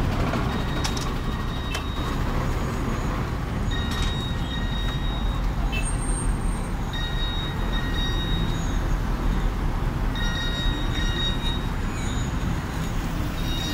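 Busy city-street traffic noise: a steady low rumble of vehicle engines and passing cars and buses, with a faint thin high whine that comes and goes several times.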